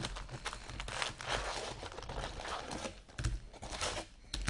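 Foil-wrapped Panini Contenders football card packs crinkling and rustling as they are handled and pulled from their cardboard box, with scattered light clicks and knocks.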